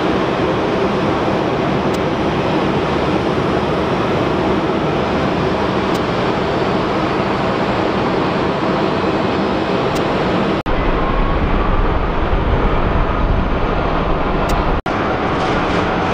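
Steady roar of jet airliners at the airport, heard from a distance with wind in it. It drops out abruptly twice, and after the first drop it carries a deeper rumble with a faint engine whine.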